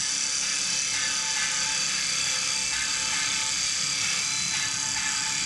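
Single-axis double-blade CNC wood lathe turning a wooden spindle, its blades cutting the spinning wood with a steady high hiss over the machine's running hum.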